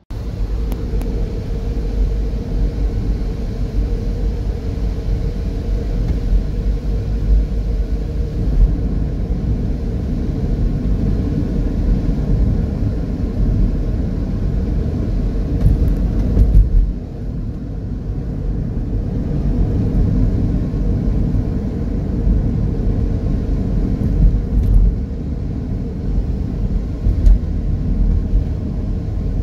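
Steady low rumble of a car driving on a wet highway, heard from inside the cabin: tyre and road noise with the engine beneath. It eases slightly a little past halfway, then carries on.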